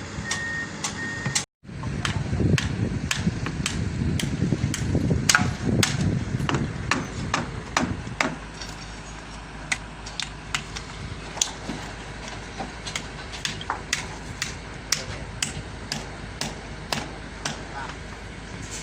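Sharp knocks at irregular intervals, about one or two a second, over a steady background with a heavier low rumble in the first half: hammering on a building site where tie beams are being put up.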